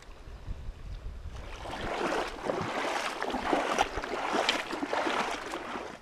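Water splashing and sloshing around someone wading in a shallow mountain creek. It starts about a second and a half in and stops just before the end, with a low wind rumble on the microphone at first.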